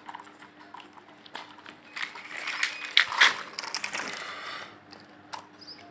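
Toy tractor being pushed by hand up a ridged pad ramp: its wheels scrape and rattle over the ridges, with scattered clicks and two sharp knocks around the middle.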